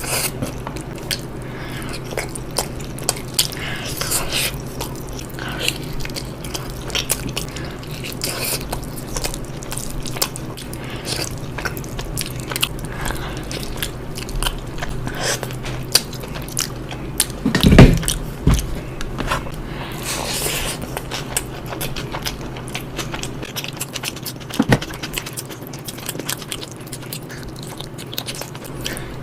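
Close-miked mukbang eating: big bites and chewing, with many short wet clicks and crunches. A deep thud a little before halfway is the loudest moment.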